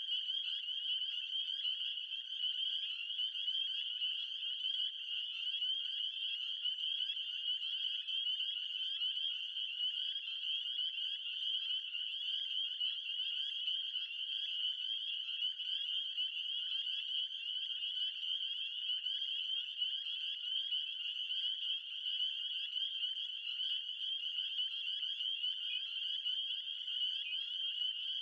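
A dense chorus of frogs calling without a break, a steady high-pitched trilling.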